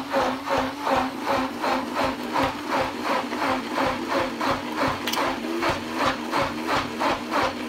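Electric stick blender running in a tall plastic beaker of thick vegan mayonnaise, mixing in lemon juice. The motor hums steadily under a rhythmic churning of about three pulses a second.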